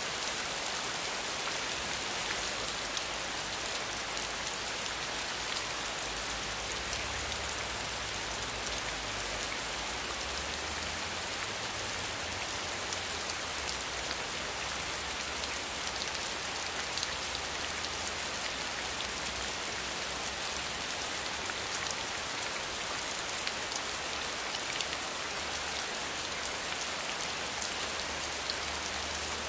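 Steady rain falling, an even hiss sprinkled with the fine ticks of single drops landing.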